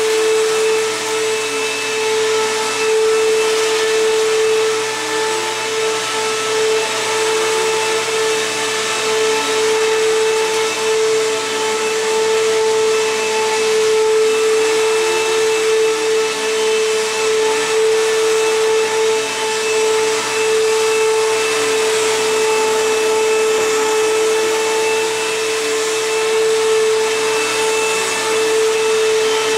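Bissell Cleanview Helix bagless upright vacuum running on carpet: a steady motor whine, under which a lower tone rises and falls in pitch every couple of seconds as it is pushed back and forth.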